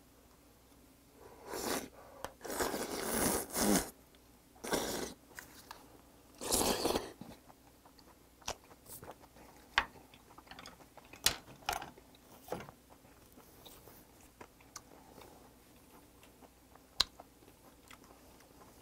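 A raw river oyster slurped off its half shell in several wet sucking bursts, the loudest in the first seven seconds, then chewed with soft wet mouth smacks and clicks.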